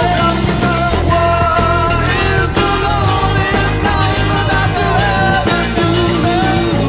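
Rock song playing, with a steady beat under a wavering lead melody line.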